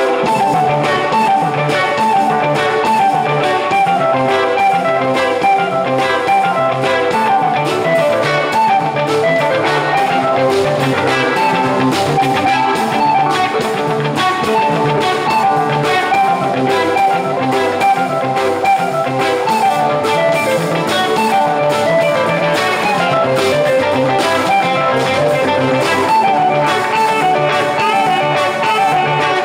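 Live rock band playing an instrumental passage: electric guitar and drum kit, with saxophone.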